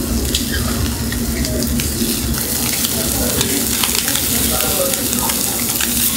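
Chicken yakitori skewers sizzling over a binchotan charcoal grill, with a steady hiss and many sharp crackles and pops from the fat dripping onto the hot coals. A steady low hum runs underneath.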